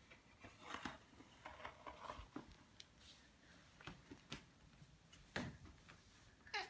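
Faint, scattered rustles and light knocks, a dozen or so brief sounds, with a short falling squeak near the end.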